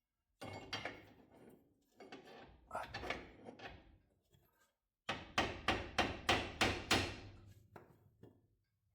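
Hammer striking metal: a few scattered knocks and scrapes, then a quick run of about seven blows, roughly three a second, about five seconds in.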